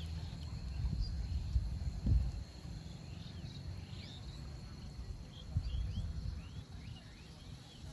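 Faint wetland birdsong: scattered short chirping calls, rising and falling, over a steady high insect drone, with a low rumble underneath.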